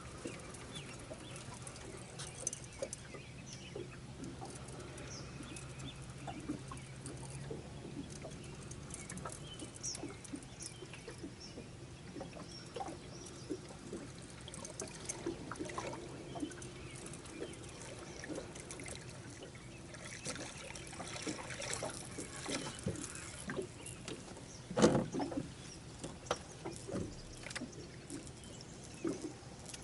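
Light water trickling and splashing with scattered small clicks and knocks, and one louder knock about 25 seconds in. A low steady hum stops about 7 seconds in.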